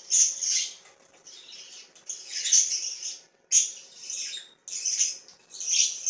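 Budgerigar chicks giving harsh, raspy calls, about six in a row with short gaps between them, typical of nestlings begging to be fed.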